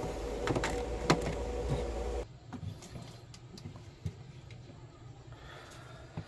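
Sharp plastic clicks and taps from hands handling a printer's casing and a removed plastic part, over a steady background hum. The hum cuts off abruptly about two seconds in, leaving quieter room tone with a few light clicks.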